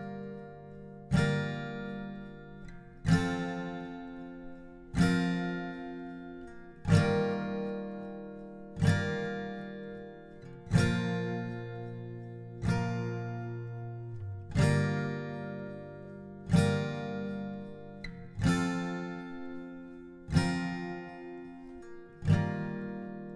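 Background music: slow acoustic guitar chords, struck about once every two seconds and each left to ring out and fade.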